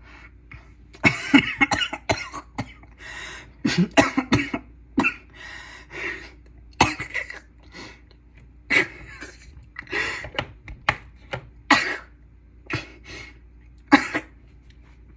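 A person coughing over and over, with some throat clearing: a long fit of short, harsh coughs about a second apart, a reaction to pepper irritating the throat.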